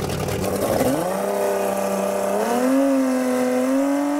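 Outboard motor driving a large water pump revs up. After a rough, noisy first second its pitch climbs into a steady high whine, stepping higher twice more.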